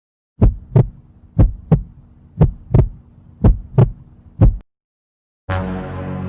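Heartbeat sound effect: paired lub-dub thumps about once a second, four pairs and a last single beat, over a faint low hum, stopping about four and a half seconds in. Near the end a sustained musical chord starts sharply.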